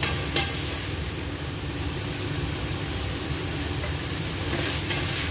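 Kitchen range hood fan running with a steady drone over chicken and celery sizzling in a hot pan as it is stirred. A sharp clack of the utensil against the pan about half a second in, and a few scrapes near the end.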